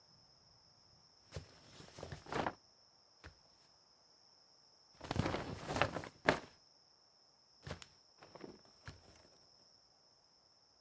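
Footsteps and the rustle of clothing and gear in short scattered bursts, busiest and loudest about five to six and a half seconds in, over a thin steady high-pitched tone.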